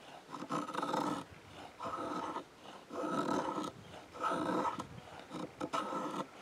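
A 1084 carbon-steel Kephart-pattern knife blade shaving down a stick of willow in five long scraping strokes, a little over a second apart, each with a pitched creak of blade on wood.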